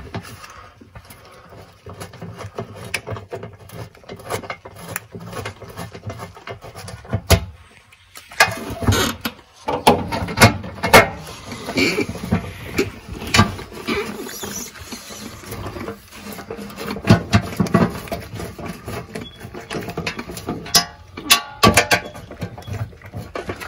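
Irregular metallic clicks, clinks and taps of bolts and the transmission oil pan being handled as the pan bolts are started by hand, a few short ringing clinks among them.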